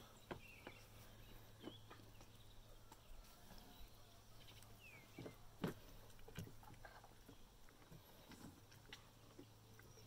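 Near silence with faint, scattered wet handling clicks and squelches from a plucked chicken carcass being worked by hand, over a low steady hum; one sharper click about five and a half seconds in.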